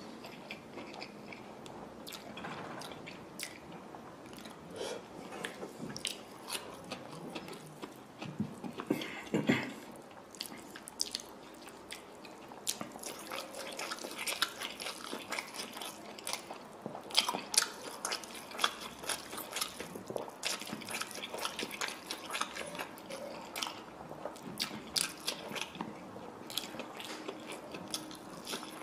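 Close-up sounds of a person eating fried fish and fried rice by hand: biting and chewing, with many short sharp mouth clicks and one louder, longer noise about nine seconds in.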